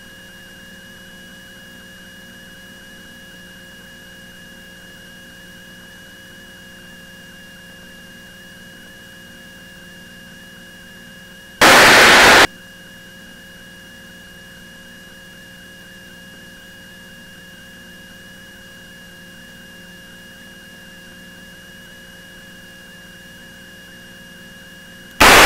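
Steady electrical hum and hiss of an aircraft intercom/radio audio feed, with a brief loud burst of static about twelve seconds in.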